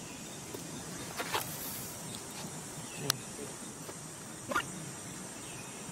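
Steady outdoor background hiss, broken by a few brief sounds: a short chirp about a second in, a sharp click at about three seconds, and another short chirp near four and a half seconds.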